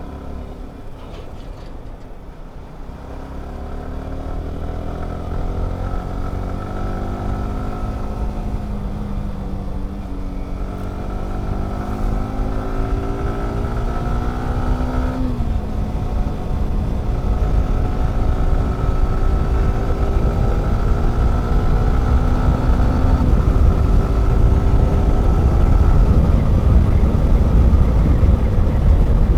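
Motorcycle engine pulling under acceleration while riding, its pitch climbing slowly, dropping sharply at a gear change about halfway through and climbing again before another shift. A low rush of wind grows louder as the speed builds.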